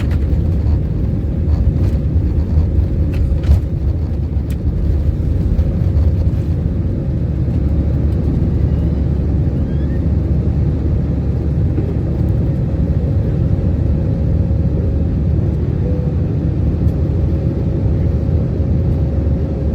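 Airbus A320 cabin noise during takeoff: a steady low rumble of the jet engines and airflow, with a faint steady hum over it and a few light clicks in the first few seconds.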